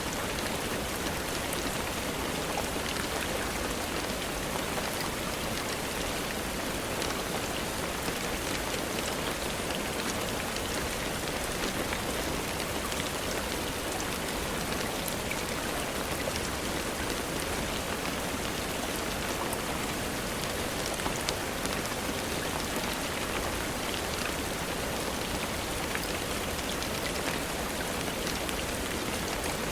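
Steady, even rainfall, with scattered faint clicks over the constant wash of rain.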